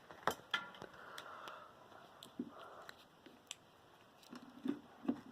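Scattered clicks and light knocks of a box-fan motor and its power cord being handled.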